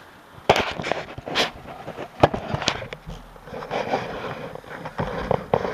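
Irregular sharp knocks and clatter of a hammer driving nails into a loose wooden slat of a bike rack, the loudest blow a little past two seconds in.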